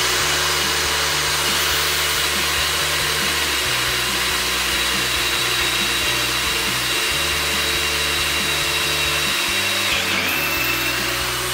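Einhell TE-CD 18/50 Li-i BL brushless cordless drill in low gear boring a 13 mm high-speed-steel bit steadily through hard wood: a continuous motor whine with the bit cutting and chips grinding, the tone wavering briefly about ten seconds in before the drill stops at the end.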